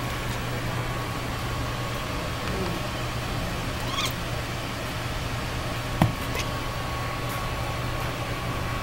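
A cat gives a short rising call about four seconds in, over a steady low hum. A sharp thump comes about six seconds in.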